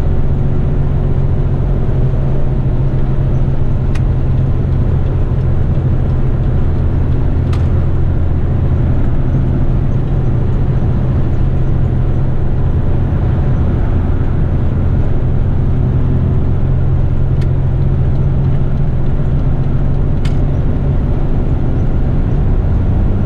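Heavy rigid truck's engine and road noise while driving along, a steady low drone with no gear change, and a few faint clicks.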